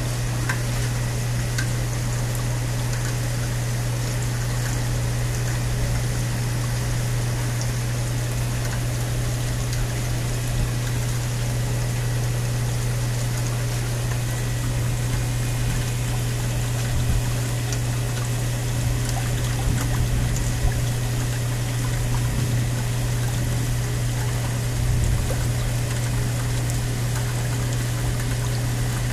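Steady storm rain with water pouring and trickling, over a constant low hum.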